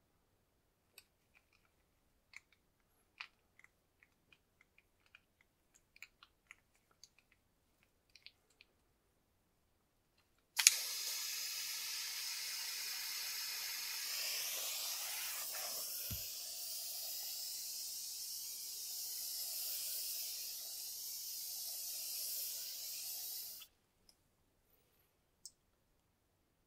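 A small handheld gas torch lit with a click and held burning with a steady hiss for about thirteen seconds, then shut off abruptly; its flame is played over freshly brushed epoxy resin to pop air bubbles in the coat. Before it, faint light clicks and taps of handling.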